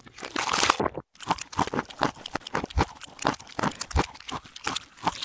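Cartoon sound effect played backwards: a short swelling noise, then a rapid, irregular run of crunching clicks for about four seconds.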